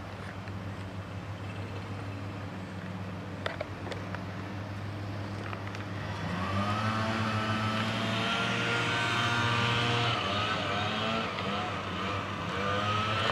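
A motor engine running steadily in the background. It grows louder and a little higher in pitch about six seconds in, then holds. A single light click sounds about three and a half seconds in.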